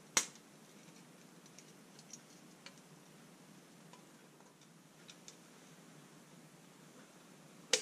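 Small hand screwdriver driving screws into a ridged metal strip on a metal mesh grille: faint scattered clicks and ticks. There is a sharp click just after the start and a louder one near the end.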